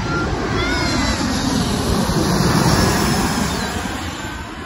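Jet airliner passing low overhead on its landing approach. The engine noise swells to a peak about two and a half seconds in, then fades.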